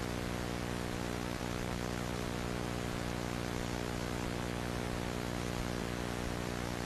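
Steady static hiss over a constant low electrical buzz, unchanging throughout.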